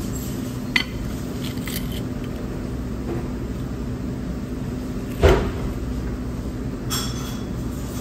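A metal fork breaks into the crisp batter of a fried cod fillet and clinks against a ceramic plate. A few short crackles and clicks come through, with one louder knock about five seconds in, over a steady low hum.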